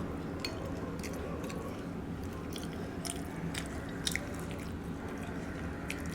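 A person chewing a mouthful of food with the lips smacking, giving scattered sharp wet clicks over a steady low chewing noise.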